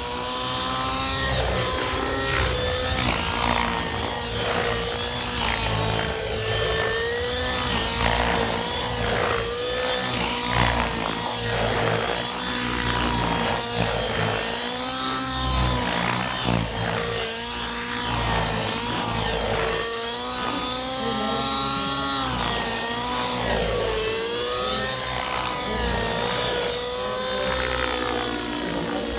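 Radio-controlled 3D helicopter flying aerobatics: a steady rotor and motor tone whose pitch and loudness swell and dip again and again as the manoeuvres load the blades.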